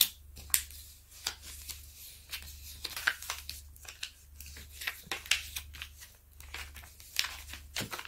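Crinkling and rustling of a diamond painting canvas and its protective cover sheet as hands smooth it down and fold and roll the sheet back, in many short crackles. A steady low hum runs underneath.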